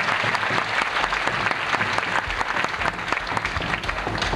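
Audience applauding, with low thuds of bombo legüero drums beaten with sticks underneath from about a second in.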